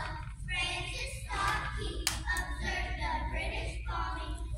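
A group of children singing together in a large echoing hall, with a few handclaps about two seconds in.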